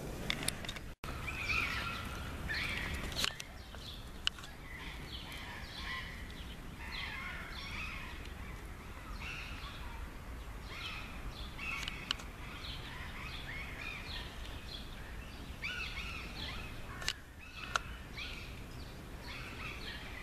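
Small birds chirping and twittering in many short, repeated notes, over a steady low background rumble.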